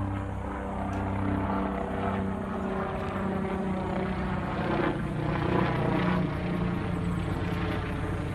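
Aircraft engine drone: a steady low hum made of several held pitches.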